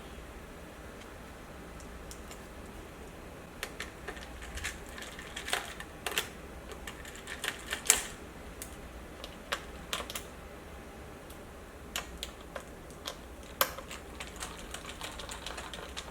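Irregular small clicks and taps from a laptop's casing and parts being handled and taken apart by hand. They start a few seconds in, with the sharpest click about eight seconds in.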